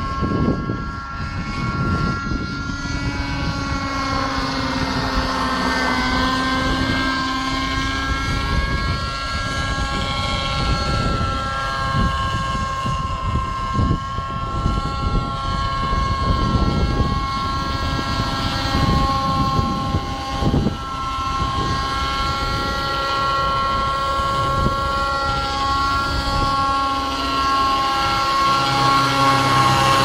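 Raptor 50 Titan nitro RC helicopter in flight: its glow engine and rotor whine rise and fall in pitch as it manoeuvres, with wind buffeting the microphone. It gets louder near the end as it comes in close overhead.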